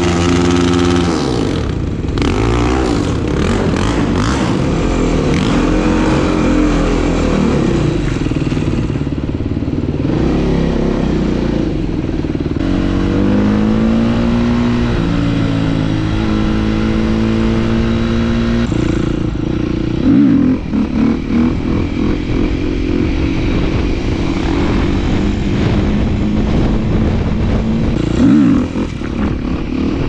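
Husqvarna 450 single-cylinder four-stroke supermoto engine being ridden hard, its pitch rising and falling with the throttle through the gears. It gives sharp throttle bursts about two-thirds of the way through and again near the end, as the front wheel comes up into a wheelie.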